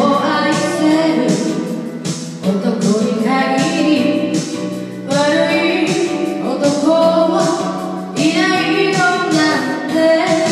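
A singer singing into a handheld microphone over a recorded backing track, in phrases a few seconds long.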